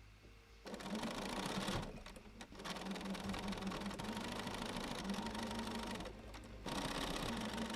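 Electric sewing machine stitching a fabric tag down onto a quilt, starting just under a second in and running in three stretches with two short pauses between them.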